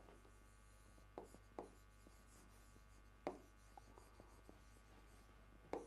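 Faint pen strokes writing on a board, with a few sharp taps, the loudest about three seconds in and another just before the end, over a low steady hum.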